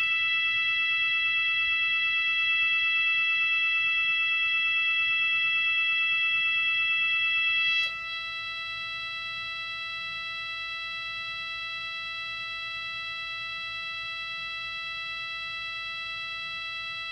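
Cooper MIN-T fire alarm sounder putting out a continuous steady electronic tone during an all-tone test. About eight seconds in it drops noticeably quieter and carries on steady at that lower level.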